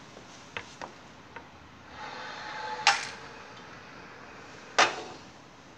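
Dynamics carts rolling along a lab track with a few light clicks, then a sharp knock with a brief ring about three seconds in and a second sharp knock about two seconds later as the carts hit the stop blocks.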